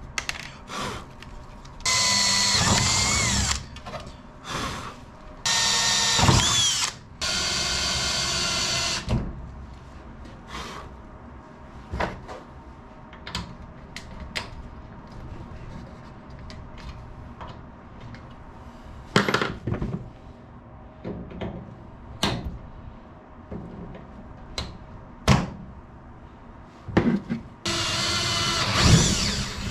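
Cordless drill drilling out solid rivets from an aircraft wing spar, in several short runs of one to two seconds each, with sharp clicks and taps between them. The rivets were badly set and are being removed for replacement.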